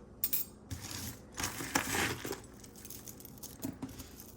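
Metal costume jewelry clinking and rustling as pieces are handled and sorted by hand, with a cluster of sharp clinks near the middle and a few more near the end.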